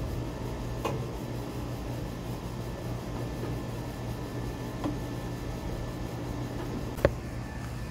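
A steady low mechanical hum, with a few faint clicks and one sharp metallic knock about seven seconds in, from hand work at the truck's front wheel.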